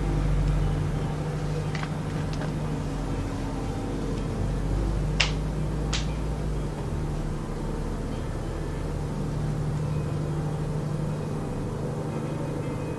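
A steady, low-pitched drone from an unidentified source that sounds like an airplane but goes on without a break. Two sharp clicks come about five and six seconds in.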